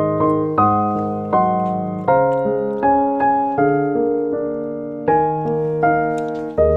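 Slow piano music: chords struck about every three-quarters of a second, each left to ring out and fade.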